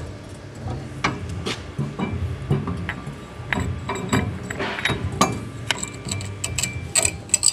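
Metal clinks and knocks as a Reiger rally shock absorber is slid back into its coil spring in a spring compressor, with a quick run of louder clicks near the end.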